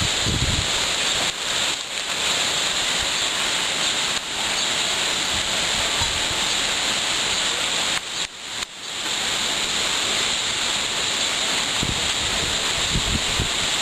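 Steady rushing noise of thunderstorm wind gusts and rain, dropping briefly about eight seconds in, with wind buffeting the microphone near the end.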